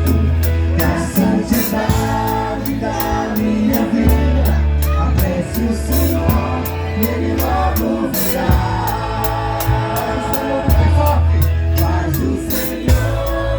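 Live Christian band playing a song with drum kit, bass and singing, the cymbals keeping a steady beat.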